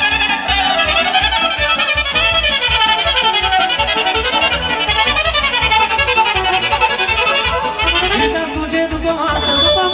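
Live wedding band playing dance music with a steady beat: violin carrying a wavering melody with saxophones.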